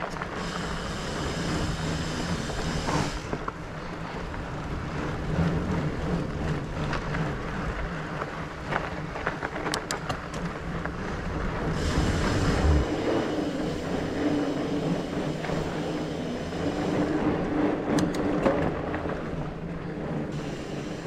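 Mountain bike rolling along a dirt singletrack: steady tyre and wind rumble, with sharp clicks and knocks over bumps.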